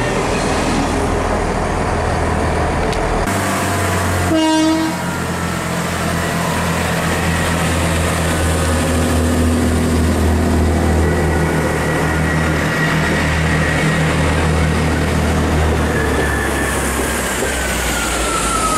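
A Great Western Railway Class 800 electric train running past, then a short horn toot and the steady diesel drone of a GWR Class 165 Networker Turbo diesel multiple unit moving slowly along the platform. A thin whine falls in pitch near the end.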